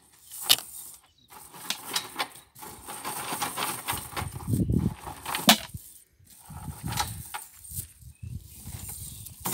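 A nylon gill net being hauled out of a plastic basin and handled, rustling and crackling in irregular bursts, with a few sharp clicks.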